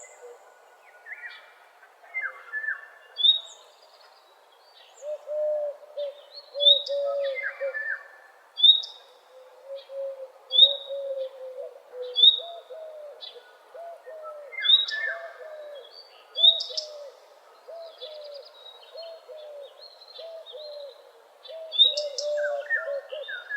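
Several birds singing at once in morning birdsong: a quick, continuous run of low, hooked notes under repeated whistled phrases and sharp high chirps that come every second or two.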